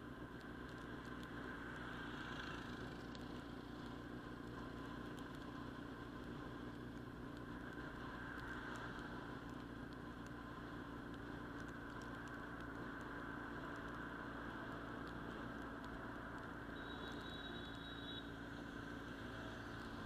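Sport motorcycle engines running steadily, with no revving, and a short high beep near the end.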